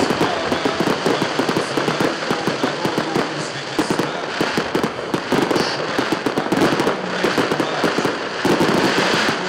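Fireworks display: a dense, continuous barrage of bangs and crackles from many shells bursting together.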